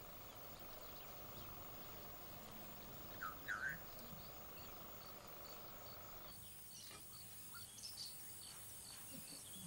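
Faint natural outdoor ambience: a steady background of insects ticking evenly, with two short rising bird calls about three and a half seconds in.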